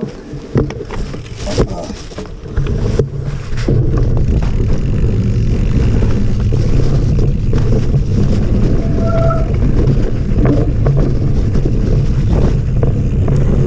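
Mountain bike rolling off and descending a dirt trail: the bike clatters and knocks over roots for the first few seconds, then, as speed builds, a steady loud rush of wind on the helmet camera's microphone and tyre rumble takes over. A short faint high call sounds once about two-thirds of the way through.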